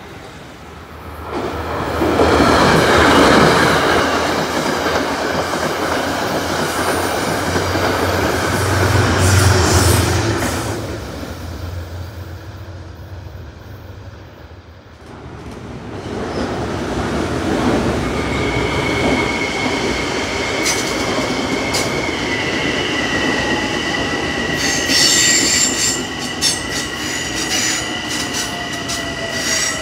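An M8 electric multiple-unit train rumbles past on the rails. After a short lull, a locomotive-hauled train of coaches rolls by, its wheels giving a steady high-pitched squeal.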